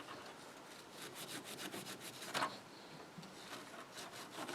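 Faint, light scratchy strokes of an abrasive scrubbing pad rubbing the corroded contacts of a pinball machine's Jones plug to clean them, with a small click about two and a half seconds in.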